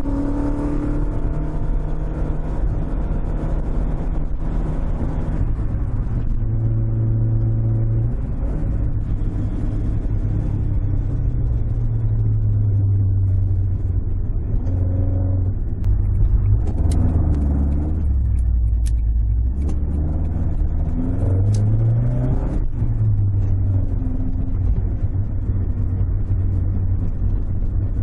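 Toyota AE86's 4A-G twin-cam four-cylinder engine heard from inside the cabin while driving. Its note rises and falls as the revs change, with short climbs in pitch in the second half.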